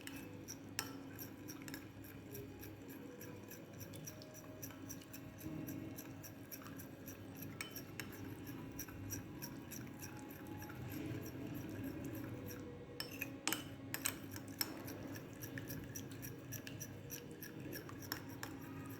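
A utensil stirring a thick aloe vera gel and oil cream in a bowl: soft scraping with light clinks, and a few sharper clinks about thirteen to fourteen seconds in. A faint steady hum lies underneath.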